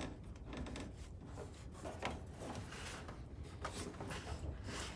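Faint handling noise of hands working a rubber fuel line at a tractor's fuel filter: scattered light rubs and small clicks over a low steady hum.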